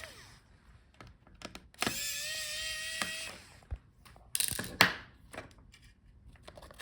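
Small electric screwdriver running with a steady whine for about a second and a half, backing out a laptop cooling-fan screw. A few sharp clicks and taps of small parts being handled follow.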